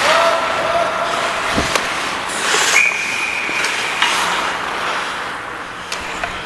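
Ice hockey play heard from a helmet-mounted camera: skates scraping the ice and air rushing over the microphone. A steady squeal is held for the first few seconds, then a short high whistle sounds about three seconds in.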